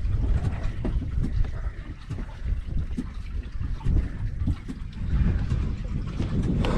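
Wind buffeting the microphone in an uneven low rumble, with water lapping and trickling against a small boat's hull and scattered faint clicks.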